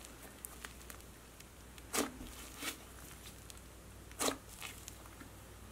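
Soft butter slime being folded and pressed by hand, with a faint, steady sizzly crackle of tiny air pockets popping. Louder squishes come about two seconds in and again just after four seconds.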